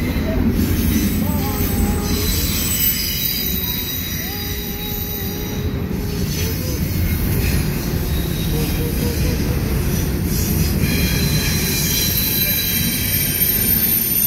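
Double-stack intermodal freight train rolling steadily past, a continuous rumble of wheels on rails with high-pitched wheel squeal over it.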